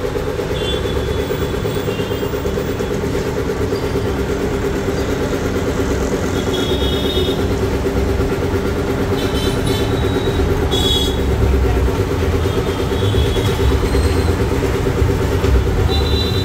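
Belt-driven 5 HP twin-piston air compressor, driven by a 3 HP single-phase electric motor, running steadily on a test run and growing gradually louder. Short high-pitched tones come now and then, with a couple of sharp clicks partway through.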